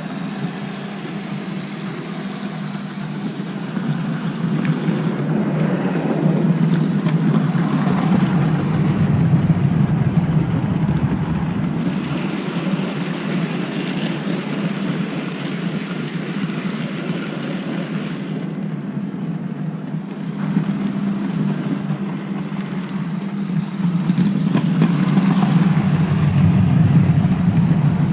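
Model railway train running on the track: a steady motor hum with wheel and rail noise. It grows louder twice, as if passing close, and fades between.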